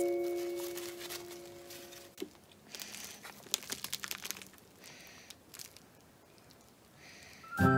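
The last notes of background music ring out and fade over the first two seconds. Then a clear plastic bag around a resin doll head crinkles in short, irregular bursts as it is handled, and the music starts again right at the end.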